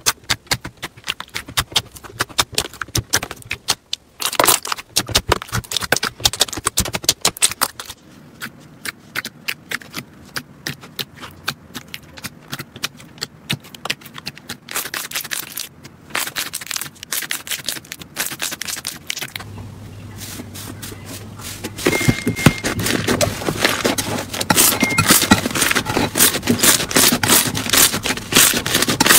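Hands squeezing, pressing and kneading slime, making rapid sticky clicks and crackles. The sound gets louder and denser about three-quarters of the way through.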